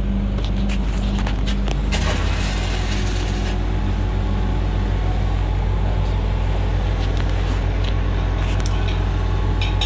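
Engine-driven welding machine running with a steady low hum. About two seconds in, a stick-welding arc is struck and the engine's note changes as it takes the load, then the arc crackles and hisses steadily.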